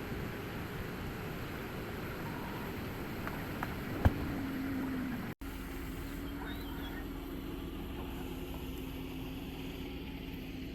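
Steady vehicle running noise, like a car on the move, with a sharp click about four seconds in and a brief cut-out just after five seconds; a low steady hum carries on after it.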